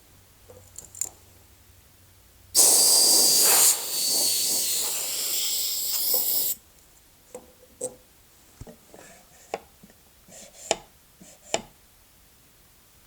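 A loud spraying hiss of air or aerosol lasting about four seconds, with a brief dip about a second in, then cutting off sharply; light clicks and taps follow.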